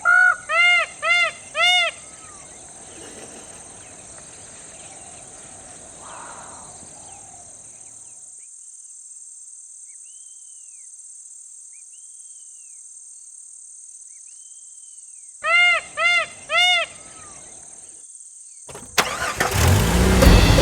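A bird gives two series of loud, repeated arching calls, four and then three, over a steady high insect drone. Near the end a vehicle engine comes in loudly.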